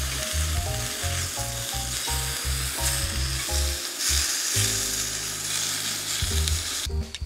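Meat sizzling in a hot cast-iron skillet on a single gas burner, a steady dense hiss that cuts off abruptly near the end.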